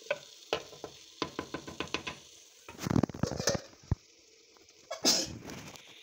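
Wooden spatula stirring potato chunks, tomato and fried onion in a clay handi: a run of quick knocks and scrapes against the pot, a denser stretch of scraping about halfway, another burst near the end, over a light sizzle of frying.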